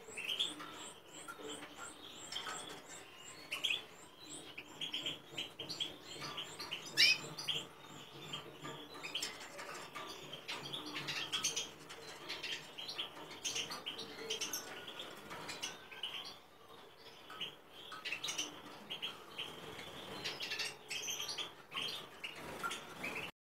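Caged finches chirping: a dense, unbroken run of short, quick chirps and call notes, with thin high notes mixed in. It cuts off suddenly near the end.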